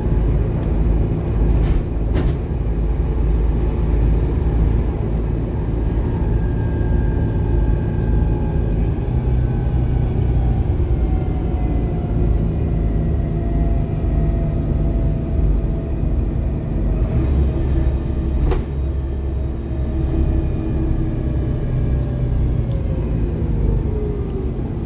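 Volvo B7TL bus running, its 7.3-litre Volvo D7C diesel and ZF Ecomat automatic gearbox giving a steady low rumble. A whine falls slowly in pitch from about six seconds in to near the end, with a couple of short knocks along the way.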